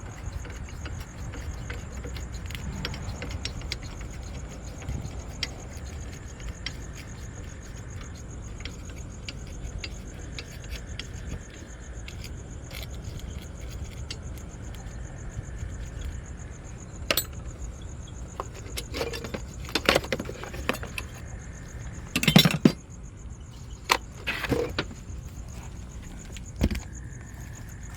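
Insects chirping steadily in a high pitch. Over that, from about two-thirds of the way in, come several sharp metallic clinks and knocks, the loudest a heavier knock a little past the middle of that stretch, as of tools and metal parts handled during car battery work.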